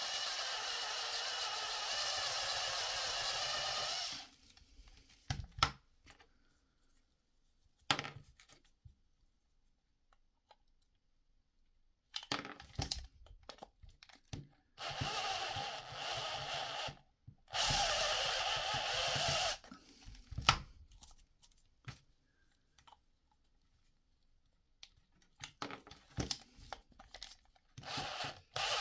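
Parkside cordless drill running in several bursts of a few seconds, its conical bit reaming out a hole in a PVC pipe coupling, with a steady motor whine over the grinding of the plastic. Short pauses between bursts hold a few knocks as the part is handled.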